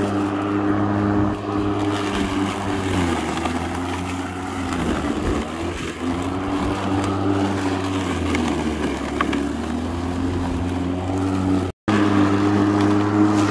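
Makita DLM382 cordless lawn mower's brushed 36 V motor (twin 18 V batteries) spinning its blade through long grass. It is a steady hum whose pitch sags twice as the thick grass loads the blade, then picks back up.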